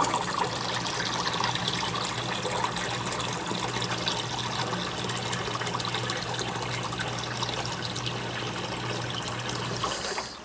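Water running steadily out of a washing machine's drain hose while the washer's drain pump hums. The hum cuts off about a second before the end, as the pump stops.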